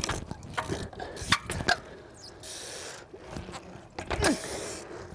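Trials bicycle hopping down stone steps: several sharp knocks as the tyres land on the stone, with mechanical clicking and short squeaks falling in pitch between them.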